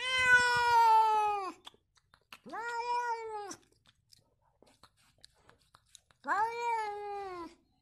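Domestic cat meowing three times with pauses between. Each meow is long and drawn out, rising at the start and sagging in pitch at the end. The first is the longest and loudest.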